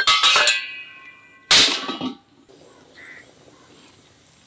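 A metal lid clatters onto a brass cooking pot and rings briefly. About a second and a half in comes a loud harsh crow caw, and fainter caws follow.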